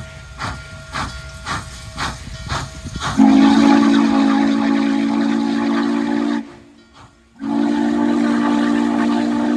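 Norfolk and Western class J No. 611 steam locomotive working, its exhaust chuffing about two to three times a second. About three seconds in, its steam whistle sounds a loud, deep chord for about three seconds, stops for about a second, and blows again.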